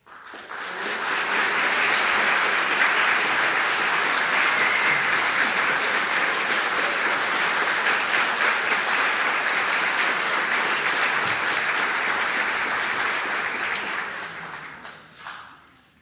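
Audience applauding: the clapping swells within about a second, holds steady, then dies away near the end.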